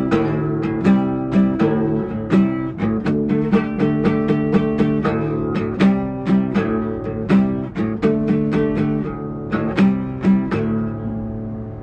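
Acoustic guitar being played, with a run of picked notes and strummed chords. Near the end a final chord is left to ring and fade away.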